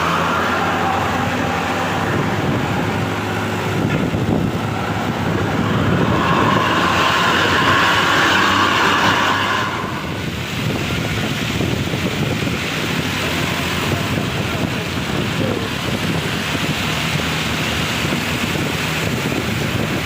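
Road traffic sound: the engines and tyre noise of moving vehicles, with a louder stretch that cuts off about halfway through.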